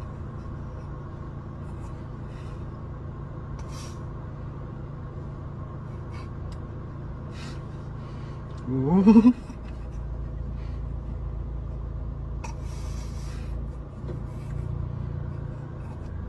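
Steady low rumble inside a car, growing heavier about halfway through, with a short loud voice sliding upward in pitch about nine seconds in.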